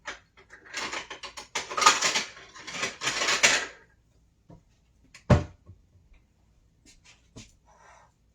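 Kitchenware clattering and rattling for about three seconds as a container is fetched from a cupboard or drawer, then a single sharp knock about five seconds in as something is set down.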